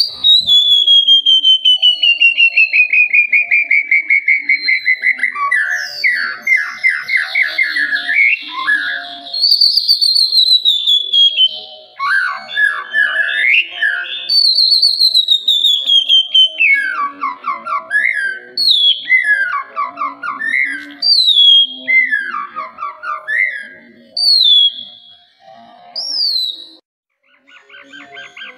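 White-rumped shama (murai batu) singing: it opens with one long whistle sliding slowly downward, then settles into repeated phrases, each a falling whistle followed by a quick rattling trill, about one every second and a half. The song drops out briefly near the end.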